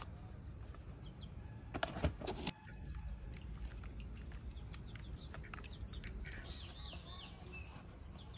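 Small birds chirping in a quick run of short falling notes late on, over a low steady rumble, with a few sharp knocks about two seconds in.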